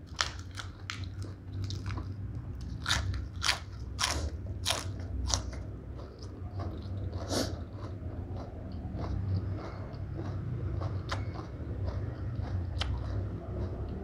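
Close-up crunching and chewing of raw crisp vegetables, cos lettuce leaves and shredded green papaya salad. Crisp crunching bites come thick in the first five seconds and once more about seven seconds in, then softer chewing with a few sharp crunches follows.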